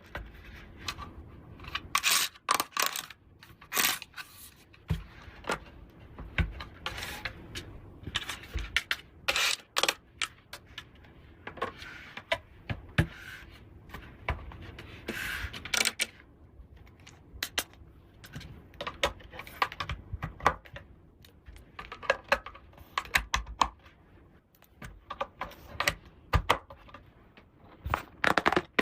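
Small plastic doll-house toy pieces being handled: irregular clicks, taps and rattles, with a few brief scraping stretches.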